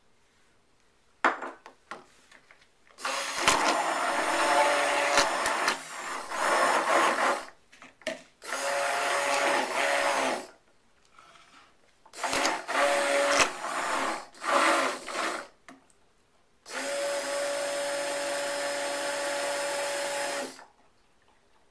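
Stick blender pulsed in a glass jug of raw soap batter: four bursts of steady motor running, each a few seconds long, the last the longest. A sharp knock comes just before the first burst.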